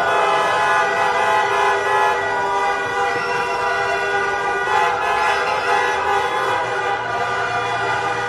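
Many car horns honking at once in long, overlapping sustained blasts, with crowd cheering beneath: celebratory street honking.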